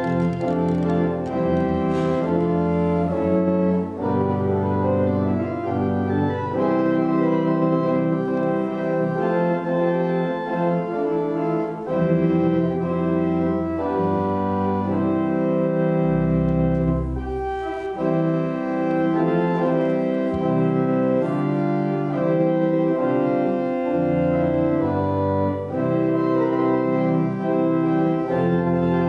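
Organ music: sustained chords that change every second or so, with a deep bass note held for a couple of seconds about halfway through.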